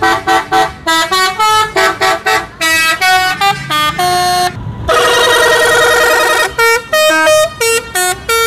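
Tour bus musical air horns ('telolet') playing a quick tune of short notes that jump up and down in pitch. About five seconds in they hold a long warbling chord, then go back to short notes.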